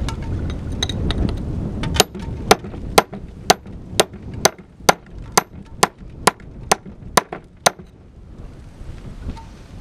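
A one-kilo club hammer striking rock in a steady series of about thirteen sharp, ringing blows, roughly two a second, chipping away to free a buried stone. Gusty wind on the microphone is heard before the blows start and after they stop.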